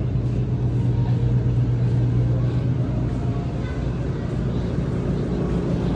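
Supermarket background noise: a steady low hum with a faint murmur.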